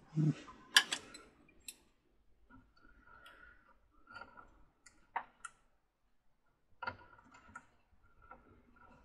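Small plastic parts and a circuit board clicking and tapping as they are handled and fitted over a carousel's rotor assembly, in a few scattered sharp clicks, the loudest under a second in.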